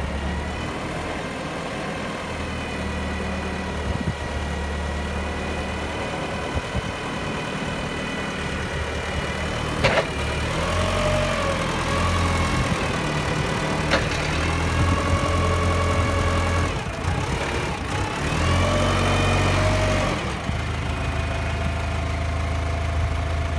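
Komatsu 3-ton forklift engine idling steadily, then revving up in three surges in the second half, each rising and falling in pitch. Two sharp knocks come at the start of the first two surges.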